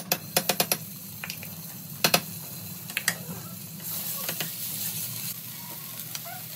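A spatula clicking and scraping against a nonstick frying pan as a paste is stirred into hot oil, with a quick run of taps at the start and single knocks later. From about four seconds in, the oil sizzles with a steady hiss. A low steady hum runs underneath.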